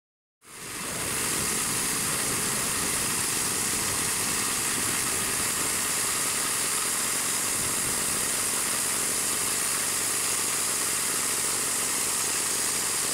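Homemade petrol-engine bandsaw mill running steadily as its blade cuts through a spruce log, a constant hissing noise. It fades in about half a second in.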